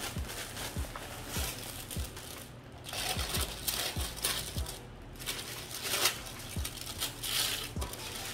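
Tissue packing paper crinkling and rustling in repeated bursts as it is pulled out of a cardboard box, with small knocks from handling the box.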